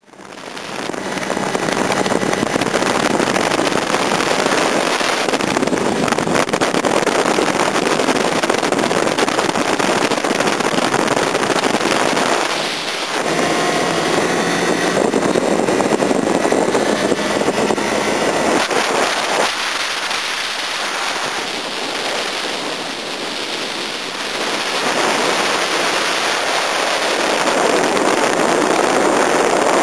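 Motorcycle riding at speed, heard as a steady rush of wind on the microphone over the running engine. It eases briefly about twelve seconds in and again for a few seconds around twenty seconds.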